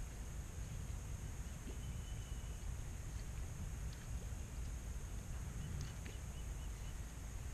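Steady low wind rumble on the microphone, with a few faint clicks and a short run of faint high chirps about six seconds in.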